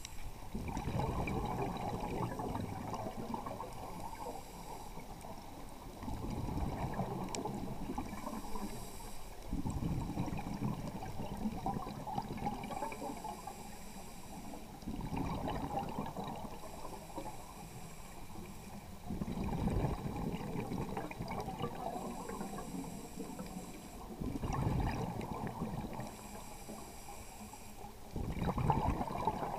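Scuba diver breathing through a regulator underwater: a bubbly rumble of exhaled air every four to five seconds, alternating with a fainter hiss on each inhalation.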